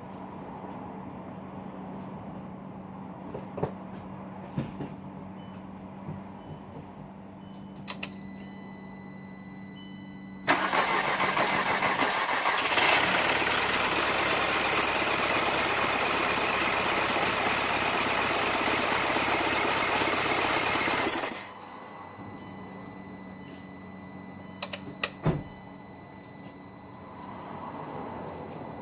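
Volkswagen Passat 2.0 turbo FSI engine running with its broken timing chain replaced, a steady hum with a few clicks. About ten seconds in it gets much louder for about ten seconds, then drops back suddenly to the steady hum.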